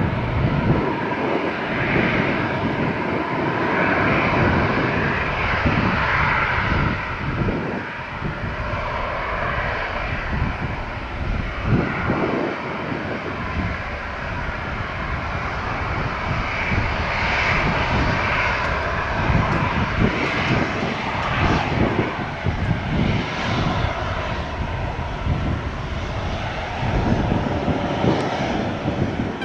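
The four CFM56 jet engines of an Airbus A340-300 at take-off thrust as it lifts off and climbs away: a loud, rough rumble that wavers in level.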